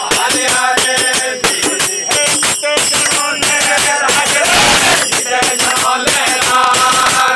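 Men singing a Rajasthani devotional bhajan together, over a fast, steady beat of hand percussion. There is a brief rush of noise about halfway through.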